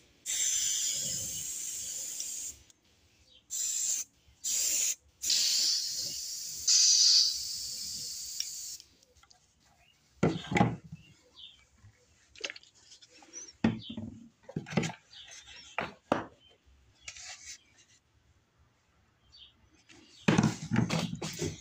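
Airbrush spraying paint in several hissing spurts, which stop about nine seconds in. Then scattered knocks and rubbing as the fish blank and the airbrush are handled and set down on the workbench.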